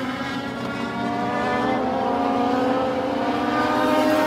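A pack of Legends race cars running around the oval, their motorcycle engines making a steady multi-engine drone that slides gently in pitch and grows a little louder toward the end.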